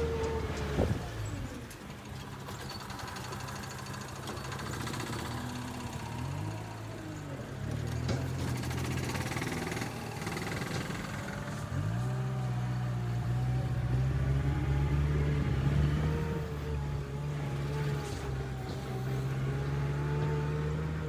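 Small vehicle engine running while driving, with the engine note rising as it speeds up about twelve seconds in.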